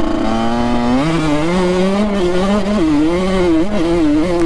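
Honda CR85 two-stroke dirt bike engine under way, its note steady for about a second, then revving up and rising and falling repeatedly as the throttle is worked.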